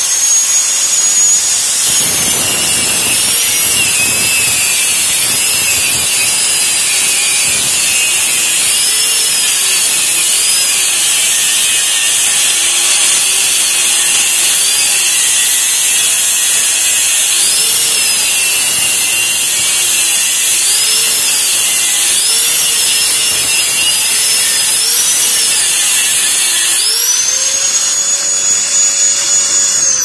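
Angle grinder cutting into the steel shell of a hermetic refrigerator compressor. The motor's high whine runs level while the disc spins free at the start, then dips and wavers in pitch as the disc bites into the metal about two seconds in, and climbs back to a steady free-running whine near the end.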